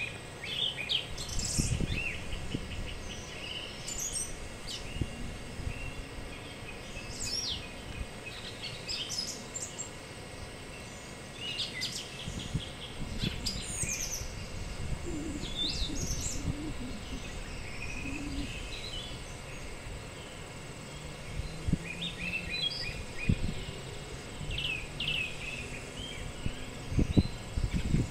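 Songbirds chirping and singing on and off over a faint steady insect drone, with wind buffeting the microphone in low rumbles now and then.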